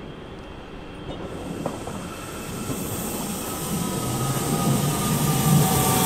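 A train approaching and running into the station, growing steadily louder, with several high tones that glide slowly downward as it slows.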